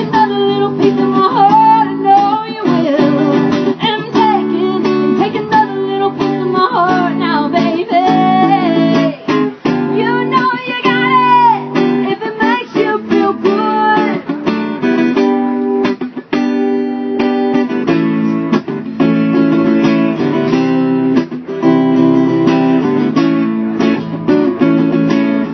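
Live acoustic music: a strummed acoustic guitar with a voice singing the melody over it, the singing plainest in the first half while the strumming carries on throughout.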